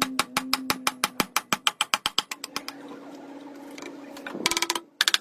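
Rapid, regular sharp clicking knocks, about six a second, over a faint steady hum. The knocks fade out about two and a half seconds in, and a faster rattling burst of clicks comes near the end.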